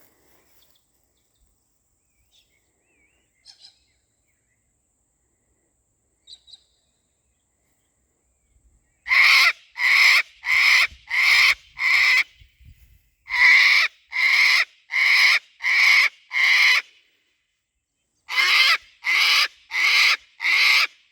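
Sulphur-crested cockatoo screeching loudly and harshly, some sixteen times in three rapid bursts of five, six and five, beginning about nine seconds in: a territorial screech at a galah flying over. Before that, only a few faint chirps.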